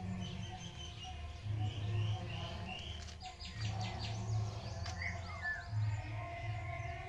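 Small birds chirping and calling in quick short notes, with a gliding call about five seconds in, over faint background music with a low, recurring bass.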